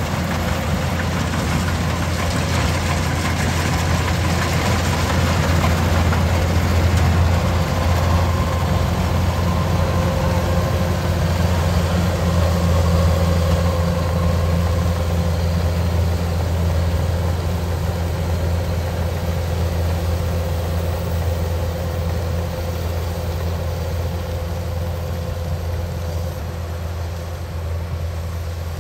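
Kubota DC-105X combine harvester's diesel engine running under load while it cuts and threshes rice: a steady low drone over a broad rushing noise. It swells as the machine comes closest, about a third of the way in, then slowly fades as it moves away.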